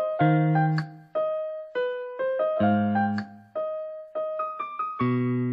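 Background music: a light piano melody of single struck notes over low bass notes.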